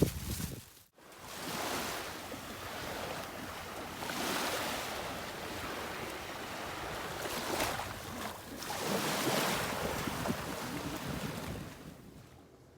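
Sea waves washing onto a beach, the surf swelling and falling away every few seconds, with some wind on the microphone.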